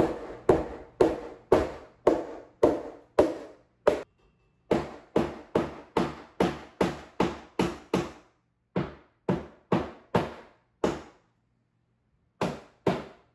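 A run of sharp knocks, about two a second, in several bursts with short pauses between them.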